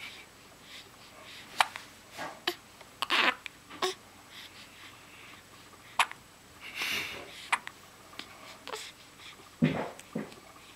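Hiccups: a run of short, sharp hics coming about every one to two seconds, with soft breathing sounds between them.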